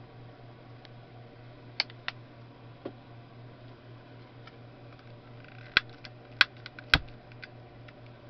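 A few sharp clicks and taps of small objects being handled: two about two seconds in and a louder cluster of three near the end. A steady low electrical hum runs underneath.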